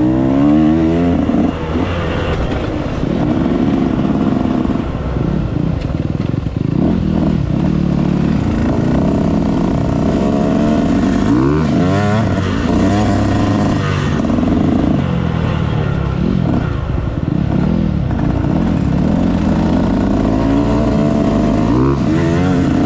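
Dirt bike engine being ridden around a track, revving up and easing off over and over, its pitch climbing and dropping with each twist of the throttle and change of gear.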